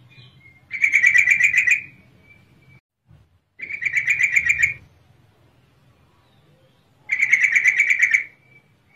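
Yellow-vented bulbul (trucukan) calling: three quick chattering bursts of rapidly repeated notes, each about a second long and a couple of seconds apart. The call is the female's, used as a lure to set males singing.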